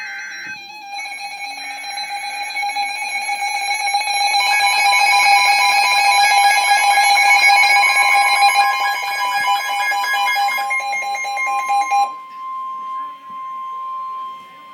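Emergency Alert System attention signal ahead of a severe thunderstorm warning: a steady, harsh two-tone alarm that grows louder, with a short burst of higher tones at the very start. The lower tone cuts off about twelve seconds in, and a single higher tone carries on.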